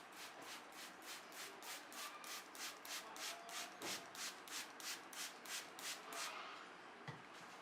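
Hands rubbing briskly over hair and scalp in a head massage, a steady rhythm of about four soft strokes a second that stops near the end.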